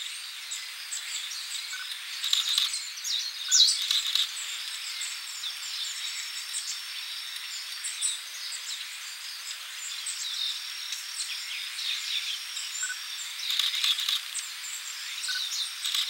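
A flock of small songbirds, long-tailed tits and Japanese white-eyes, calling with many high, thin chirps and twitters, with denser bursts a few seconds in and again near the end. A steady high insect buzz runs underneath.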